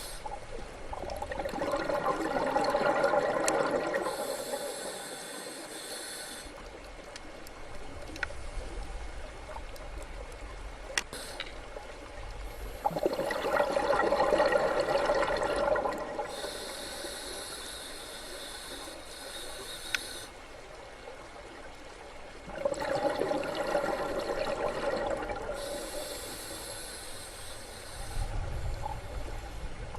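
Scuba diver breathing underwater through a regulator: a gush of exhaled bubbles, then a hissing breath in, repeating in slow cycles about ten seconds apart.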